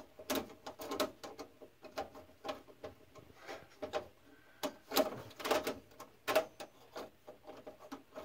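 Irregular clicks and short scrapes of a small screwdriver and screw against the sheet-metal ignitor bracket of a gas furnace, as a screw is worked at but will not line up with its hole.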